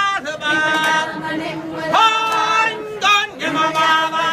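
A group of musical-theatre cast members singing a cappella together, with several voices holding long notes in harmony.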